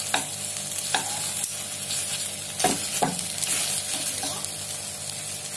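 Chicken legs sizzling in a soy sauce glaze in a nonstick frying pan on the flame, a steady frying hiss, while metal tongs turn and stir them, knocking and scraping on the pan a few times.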